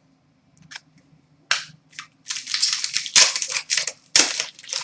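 Trading cards and their pack wrappers being handled: a run of sharp snaps and crinkling crackles, densest in the middle.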